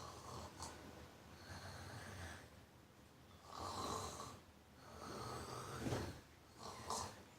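A person snoring: a series of rasping breaths, each lasting about half a second to a second, repeating every one to two seconds.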